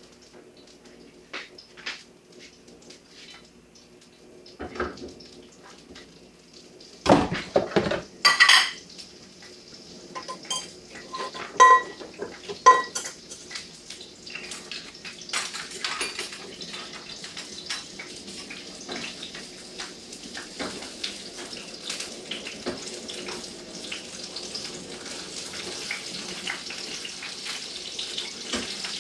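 Kitchenware being handled at a gas stove: loud clattering about seven to nine seconds in and short ringing clinks around twelve seconds. Through the second half a steady sizzle of sausages frying in hot oil builds up.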